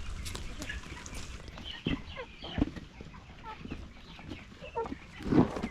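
Young chickens peeping and clucking. There are a couple of short knocks about two seconds in and a louder thump near the end.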